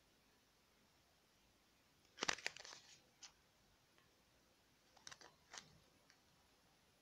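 Small paperboard pillow box of soap handled and squeezed in the fingers: a quick run of crackles and clicks about two seconds in, a single click soon after, and a few more clicks around five seconds in.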